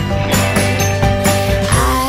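Pop song playing as background music, with a steady beat.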